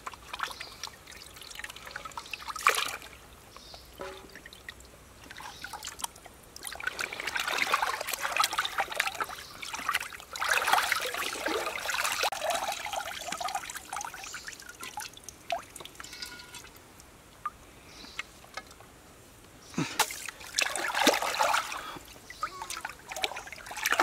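Water is sloshed in a wok and poured out into a shallow stream, splashing and trickling in bursts. The longest burst runs from about 7 to 13 seconds in, and a shorter one comes about 20 seconds in.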